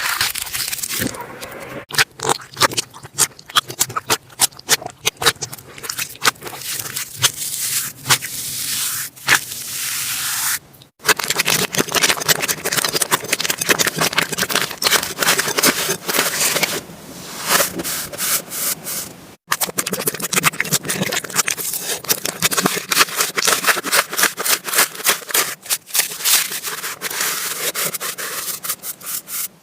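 Slime being squeezed and worked by hand: a dense, continuous run of small crackles and pops. The sound drops out for an instant twice, about eleven and nineteen seconds in.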